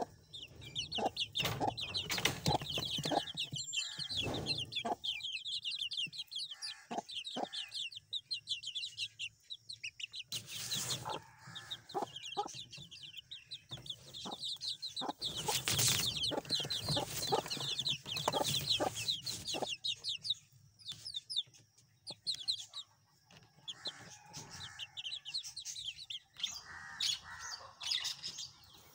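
Several young hens chirping in rapid high-pitched runs and clucking, with scattered sharp taps as they peck at a plastic feeder.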